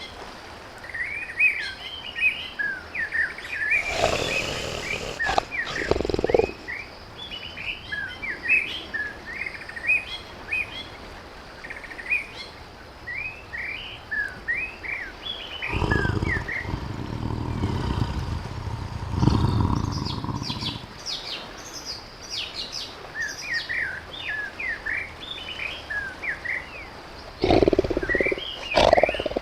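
A tiger growling in three low bouts: one about four seconds in, a longer one in the middle lasting several seconds, and a short one near the end. Small birds chirp throughout.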